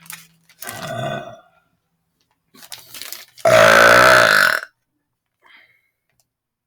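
A man burping into a bag: a shorter, quieter sound about a second in, then one long, loud, pitched burp lasting about a second, starting about three and a half seconds in.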